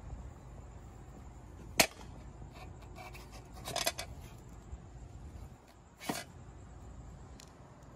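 A single sharp click a little under two seconds in, then brushing and rubbing noises as a hand handles the lamp fixture, and a brief scuff of handling near the end.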